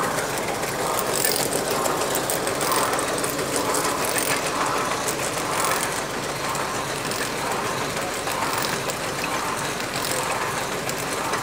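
A heavy machine's engine running steadily, a continuous mechanical noise with no pauses.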